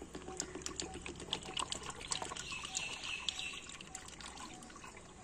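Coolant pouring from a plastic jug into a funnel in the radiator filler, a stream of splashing and gurgling that is busiest in the middle and trails off near the end.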